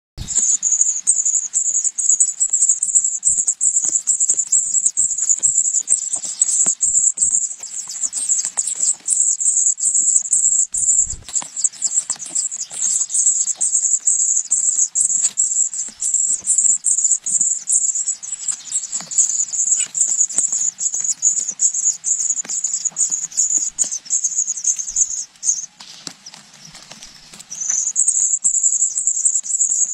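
Steady, high-pitched insect chorus buzzing on and on with a fast flutter. It drops out for about two seconds near the end and then resumes.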